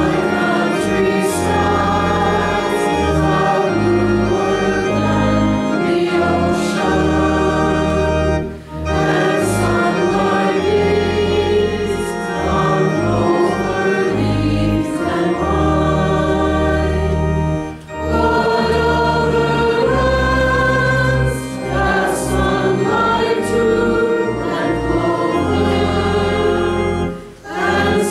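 Mixed choir of men and women singing a slow hymn in long held chords over organ accompaniment. The sound dips briefly for a breath between phrases about every nine seconds.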